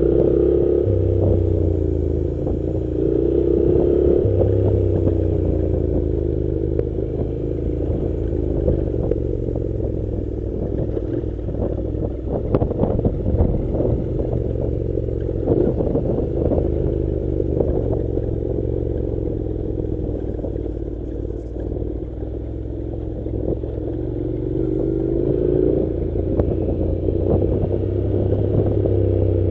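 Honda NC700's 670 cc parallel-twin engine running as the motorcycle rides a rough dirt road, its note rising and falling with the throttle. Knocks and clatter from the rough surface come in a bunch around the middle.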